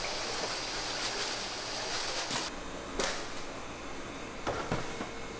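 Food sizzling on an iron griddle, a steady hiss that cuts off about halfway through. A quieter hum follows, with a few sharp clacks.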